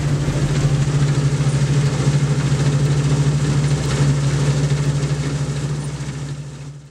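Combine harvester running in the field, a steady engine drone with a constant low hum, fading out near the end.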